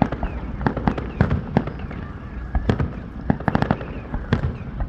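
Aerial fireworks bursting: a string of sharp bangs at irregular intervals, with a quick cluster of cracks about three seconds in.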